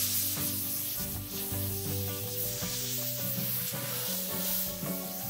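Protective plastic film being peeled off a new sheet-metal pontoon fence panel, a steady hiss, over background music.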